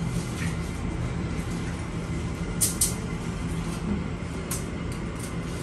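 Steady low hum and room noise while food is served by hand from a plastic bowl onto a plastic-covered table, with two sharp clicks close together about two and a half seconds in and a few fainter ticks later.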